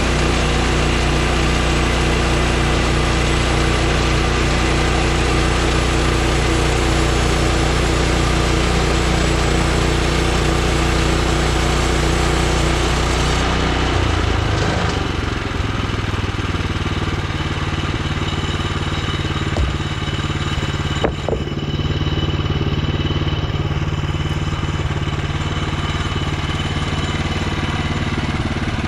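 Portable bandsaw sawmill's gas engine running under load with a steady high hiss. About halfway through, the hiss stops and the engine settles to a lower, steady speed. There is a brief knock near the end.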